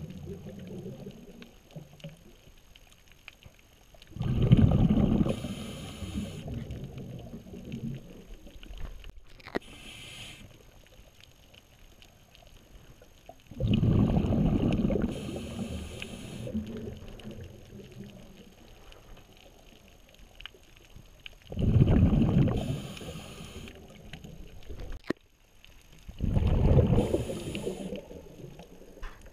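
A scuba diver's exhaled bubbles, heard underwater, bubbling out of the regulator in four bursts of about two seconds each, several seconds apart. Between the bursts there is a quieter underwater rumble.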